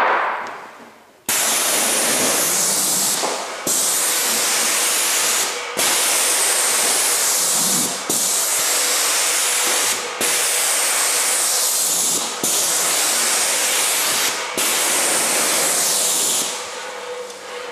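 Airless paint sprayer with a large 515 tip spraying a door: a loud, steady hiss that starts about a second in and cuts out briefly about every two seconds as the trigger is released between overlapping passes, fading near the end.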